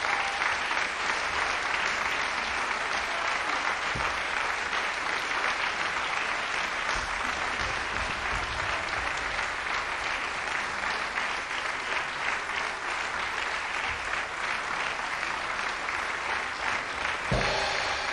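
A large audience applauding steadily. About 17 seconds in, the orchestra starts playing again beneath it.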